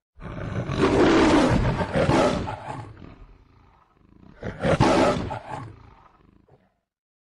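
The MGM logo's lion roar, played back pitched up: two roars, the second beginning about four seconds in.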